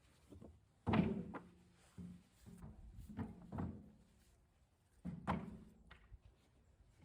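About six irregular, dull knocks on the wooden boards of an old fence being taken apart. The loudest comes about a second in and another strong one about five seconds in.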